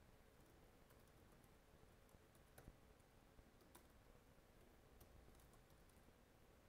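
Faint, irregular clicks of a computer keyboard being typed on, over near-silent room tone.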